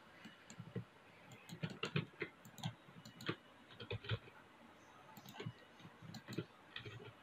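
Faint, irregular clicks of a computer mouse and keyboard, in small clusters.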